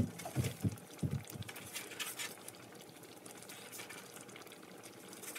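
Vegetable broth boiling gently in a pan, a steady low bubbling. A sharp tap right at the start and a few soft knocks in the first second, and brief paper rustles now and then as pieces of dough are picked up and laid on the broth.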